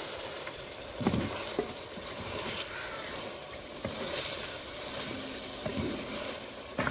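Chicken pieces and tomatoes sizzling as they fry in an aluminium karahi, while a wooden spoon stirs and scrapes through them. The spoon knocks against the pot a few times.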